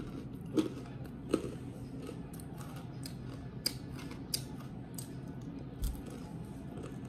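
A person chewing food close to the microphone: scattered short clicks and mouth smacks, the two loudest about half a second and just over a second in, over a steady low room hum.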